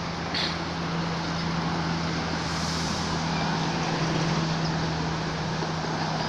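Steady low motor hum under an even rushing noise, with one brief click about half a second in.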